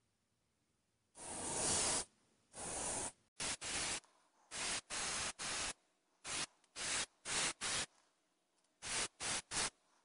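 Gravity-feed airbrush spraying transparent yellow paint in separate bursts of hiss. A longer burst comes about a second in, then a dozen or more short blasts as the trigger is worked on and off.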